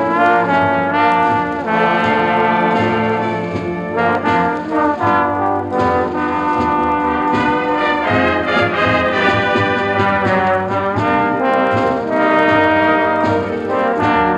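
High school band playing, with the brass to the fore in full held chords that change every second or two.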